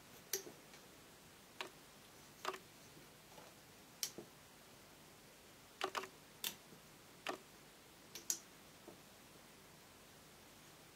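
Faint, irregular clicks and ticks, about a dozen over eight seconds, as rubber loom bands are stretched and snapped onto the plastic pegs of a loom.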